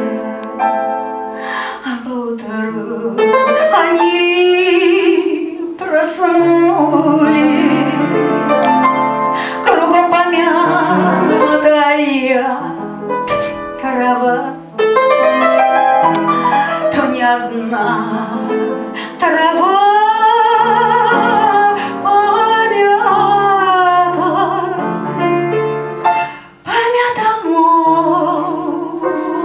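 A woman singing with a wavering vibrato on long held notes, accompanied by an upright piano. The voice drops out briefly about 27 seconds in while the piano carries on.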